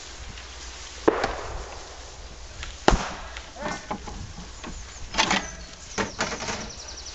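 Sharp knocks and cracks: two loud single ones about a second and three seconds in, then scattered clusters of smaller ones.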